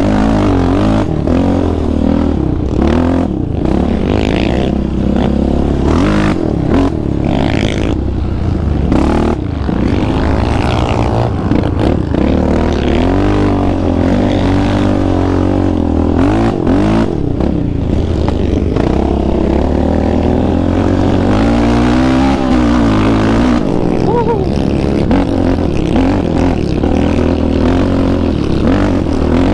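Yamaha Raptor 700R quad's single-cylinder four-stroke engine, fitted with an aftermarket Monster exhaust, revving up and down repeatedly as it is ridden through sand, its pitch rising and falling with each throttle change.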